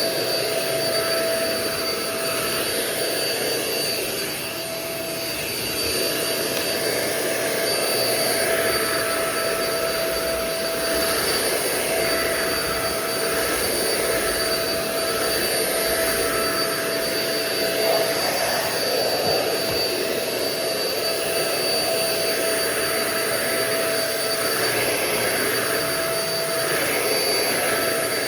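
Euro-Pro Shark EP600 bagless stick vacuum running steadily, a high motor whine over the rush of air.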